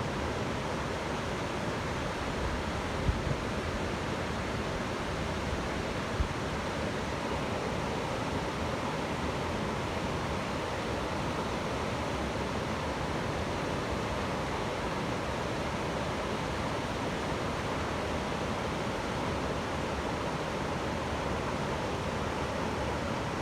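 Waterfall's steady rush of falling water, with two brief low thumps about three and six seconds in.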